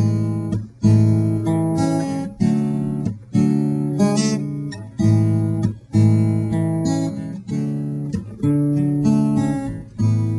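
Acoustic guitar strummed slowly, one ringing chord about every second, with no voice over it: the instrumental opening before the singing comes in.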